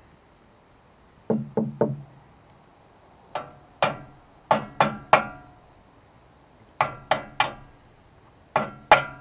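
A duck egg tapped hard against the metal grate of a portable camp stove: about a dozen sharp knocks in bursts of two or three, each with a brief metallic ring. The thick duck-egg shell holds out against the blows, a lot stronger than a chicken egg.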